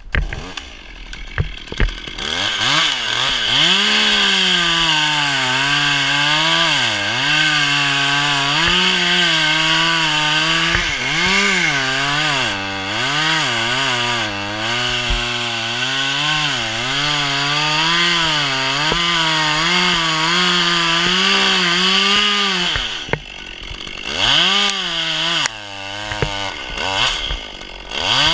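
Small top-handle chainsaw running at high revs, its pitch repeatedly dipping and recovering as it bites into a coconut palm trunk. The engine drops back briefly a little over three-quarters of the way through, is blipped a couple of times, and then picks up speed again near the end.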